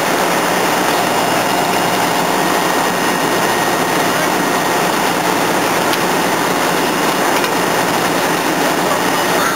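Fire apparatus engines running steadily at the fire, a constant, unchanging noise, with indistinct voices in the background.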